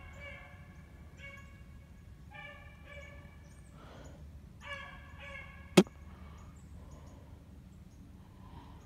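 Rabbit-hunting dogs baying in short, drawn-out calls every second or so as they run a rabbit's trail through the brush. A single sharp crack about six seconds in is much louder than the baying.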